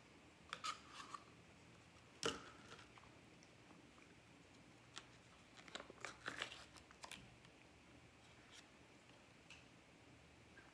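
Quiet eating sounds: a metal spoon clicking and scraping in a plastic pudding cup, with mouth sounds of eating chocolate pudding. Scattered faint short clicks, the sharpest about two seconds in and a quick run of them around six to seven seconds.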